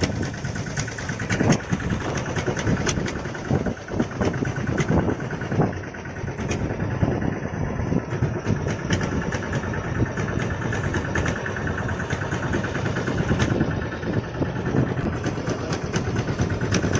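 Fishing boat engine running steadily, with scattered short clicks over it.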